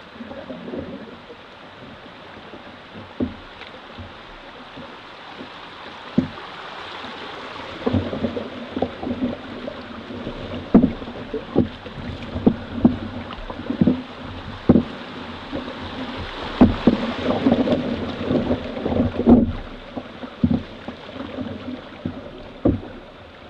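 Water rushing and splashing around a canoe running a small rapid, louder through the middle stretch, with many irregular knocks and thumps.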